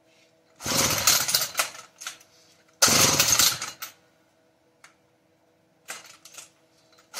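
Two-stroke chainsaw being pull-started: two rope pulls, each about a second of the starter and engine turning over, without the saw catching. The owner suspects the ignition timing and points.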